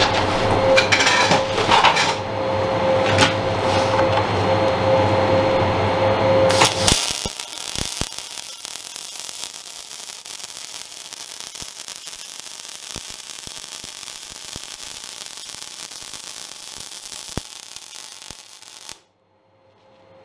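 MIG welding arc on steel plate, crackling and hissing as a corner weld is laid. A louder steady buzz in the first seven seconds gives way to a fainter hiss with scattered crackles, which stops abruptly about a second before the end as the arc is broken.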